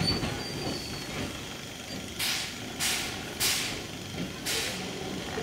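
Steam locomotive exhaust chuffing as it works the train: four short, sharp hissing puffs in the second half, three of them evenly spaced about 0.6 s apart, over the steady rumble of the cars rolling on the rails.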